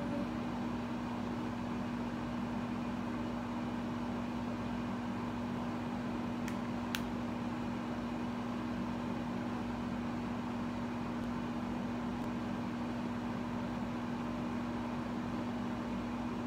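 Steady mechanical hum with a single low droning tone under an even hiss, unchanging throughout; two faint clicks about halfway through.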